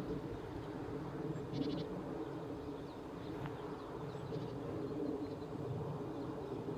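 Distant class 01 steam locomotive working, heard as a steady low rumble with no distinct chuffs. Birds chirp briefly about a second and a half in and again near the middle.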